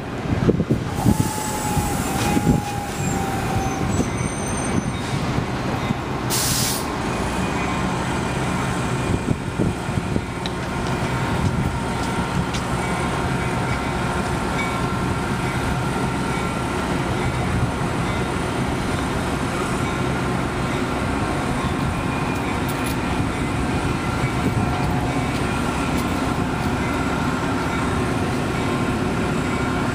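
Metra bilevel commuter train standing at the station with a steady diesel drone. A thin squeal from the brakes about a second in lasts a few seconds as the train comes to a stop. A short hiss of air follows a few seconds later.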